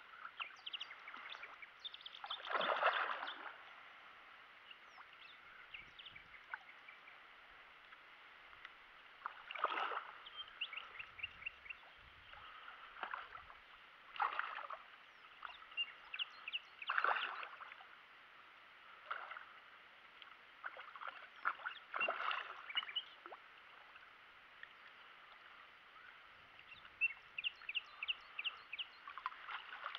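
Water splashing in short bursts a few seconds apart as a hooked carp thrashes at the surface beside a landing net.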